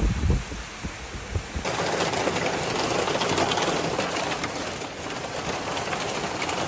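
Hail pelting a patio slab and lawn: a dense, steady clatter of countless small hailstone hits, starting suddenly after a few low thumps in the first second and a half.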